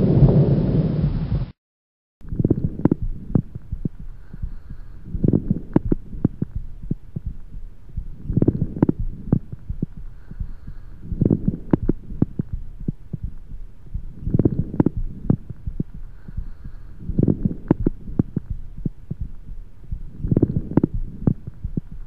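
Recorded lung sounds: coarse crackles, low bubbling pops clustered with each breath about every three seconds, the sign of secretions or fluid in the larger airways. It opens with the end of a loud, harsh breath sound over a consolidated lung, which cuts off about a second and a half in.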